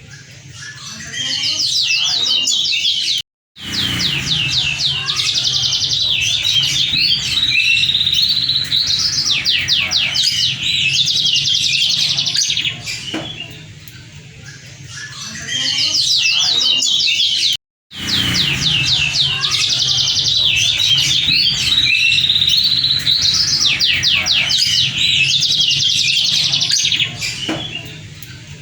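Moken, a Mozambique (yellow-fronted) canary × domestic canary hybrid, singing a long, full song of fast trills and warbles. The song breaks off twice for an instant and over a steady low hum.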